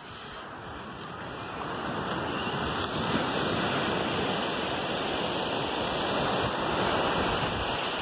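Small waves washing onto a sandy beach: a steady rushing noise that swells over the first few seconds and eases slightly near the end.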